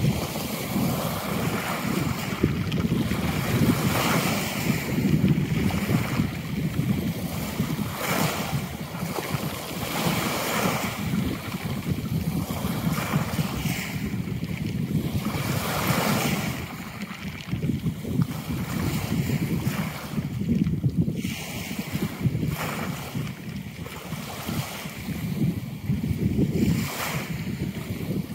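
Sea waves washing against the shore, mixed with wind buffeting the microphone. The noise swells and eases every few seconds.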